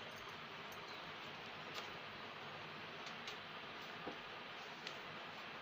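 Low steady background hiss with about five faint, irregular clicks.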